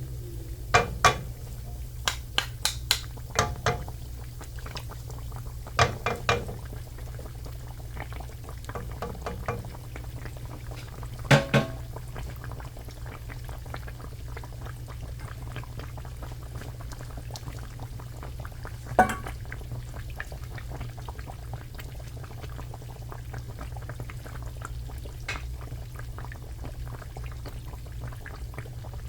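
Oil sizzling and crackling steadily as food fries. Sharp utensil knocks come in clusters in the first dozen seconds and once more about nineteen seconds in.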